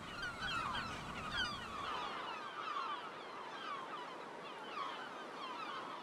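Lesser black-backed gull colony calling: many birds at once, a dense chorus of overlapping short, falling calls.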